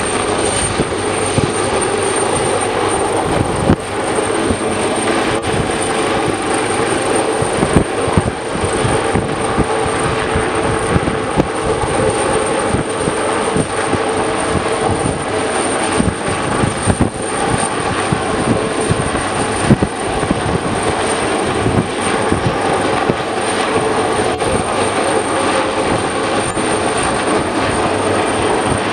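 AgustaWestland AW139 coastguard search-and-rescue helicopter hovering low over the sea, its rotor and turbine engines running steadily, with a thin high whine above the rotor noise.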